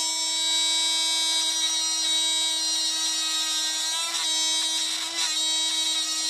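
Handheld rotary tool running steadily at high speed, its cone-shaped bit grinding a small indentation into the plastic of an action figure's neck. The whine dips slightly in pitch twice, about four and five seconds in, as the bit bites into the plastic.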